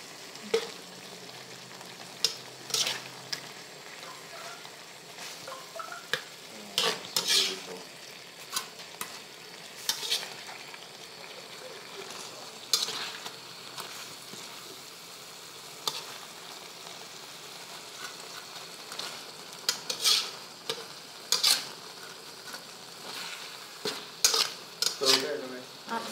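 A spatula scrapes and clinks against a metal wok as fried catfish pieces are stirred through thick curry sauce, in irregular strokes every second or few. The sauce sizzles steadily underneath.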